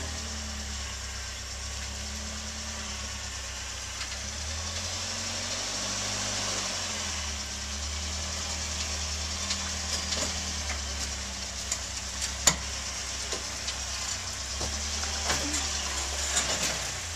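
Rock crawler buggy's engine running at low revs, its pitch shifting a little as the buggy crawls, with scattered sharp knocks, the loudest about two-thirds of the way through.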